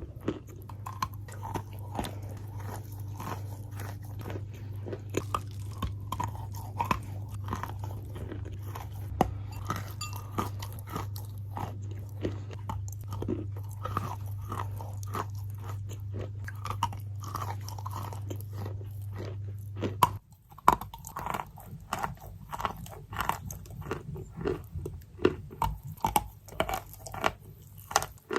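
Wet, soft crunching of chalk: many small crunches in quick succession. A low steady hum lies under it and stops abruptly about twenty seconds in.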